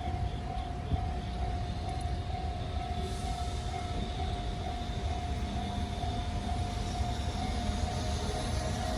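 EF210 electric freight locomotive standing after an emergency stop, giving a steady whine over a low rumble. About three seconds in, a rushing hiss rises and holds as its cooling blowers start up ahead of a slow restart.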